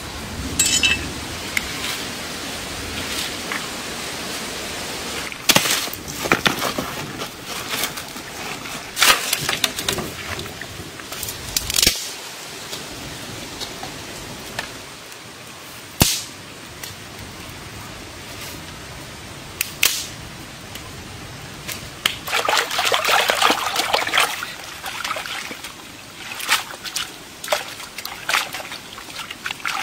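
Hands handling bundles of fern shoots and greens, with scattered sharp clicks and knocks. Water splashes and sloshes as the greens are washed by hand, the busiest stretch coming about two-thirds of the way in.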